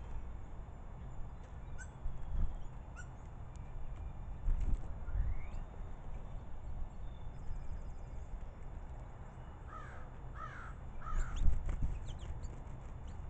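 Common starlings calling: scattered clicks and short whistles, a quick high rattle, then three harsh calls about ten seconds in. Low rumbles run underneath.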